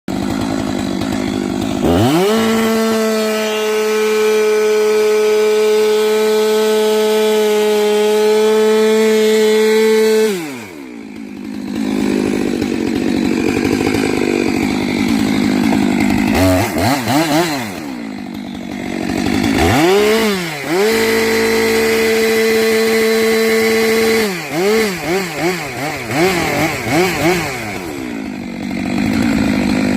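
Stihl two-stroke chainsaw revving up from idle and holding steady at full throttle for several seconds, then dropping back. It is blipped and held high again, followed by a run of quick throttle blips before settling to idle.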